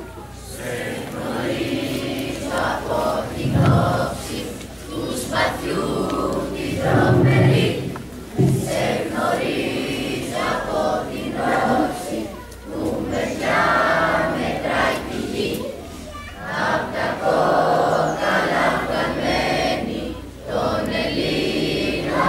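A crowd of people singing together in phrases with short breaks between them.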